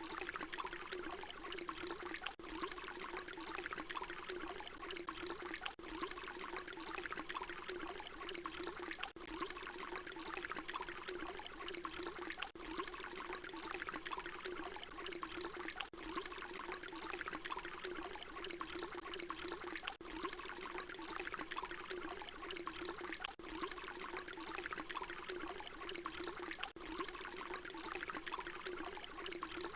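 Water pouring in a steady stream, a short recording looped, with a brief dip about every three and a half seconds where it repeats.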